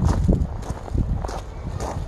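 Footsteps on gravel at a steady walking pace, about two to three steps a second.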